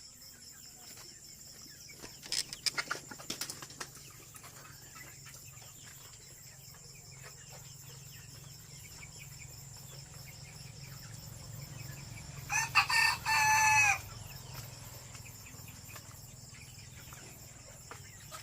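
Fayoumi chickens: a rooster crows once, loudly, about twelve seconds in, its call dropping in pitch at the end. A scatter of short, sharp clucks comes a couple of seconds in.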